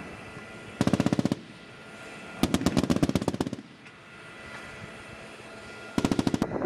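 Machine-gun fire from an M1 Abrams tank's mounted guns: three rapid bursts. The first and last last about half a second each, and the middle one runs about a second. A faint steady whine sits between the bursts.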